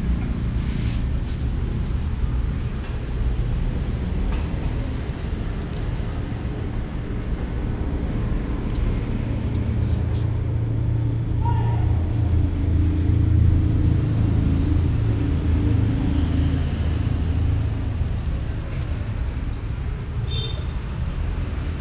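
Steady low mechanical rumble, like a motor running, swelling louder around the middle.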